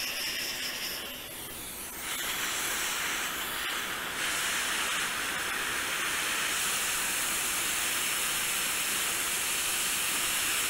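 Hot air rework station blowing a steady hiss of hot air onto a MacBook Air logic board, reflowing a replacement chip. The hiss gets louder and brighter about two seconds in and again about four seconds in.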